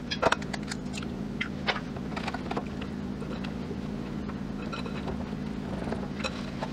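Wire whisk stirring thick, warm chocolate batter in a glass bowl: wet stirring with scattered light clicks and taps of the wires against the glass, over a steady low hum.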